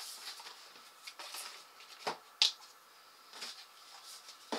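Small white cardboard accessory boxes being handled and set down on a table: light rustling and scraping, with two sharp taps a little after two seconds in, the second the loudest.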